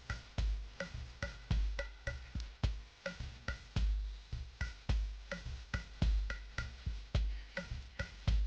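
Background music: a programmed drum beat with a deep bass drum about once a second.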